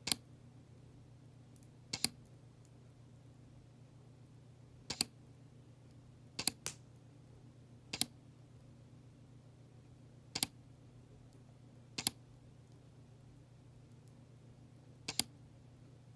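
Automatic blood pressure monitor letting air out of its cuff in steps: the release valve clicks about eight times at uneven gaps of one and a half to three seconds, most clicks coming as quick pairs, over a low steady hum.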